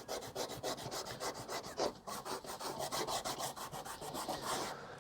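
A bar of buffing (cutting) compound rubbed back and forth on a leather strop to charge it, in rapid scratchy strokes several a second that stop just before the end.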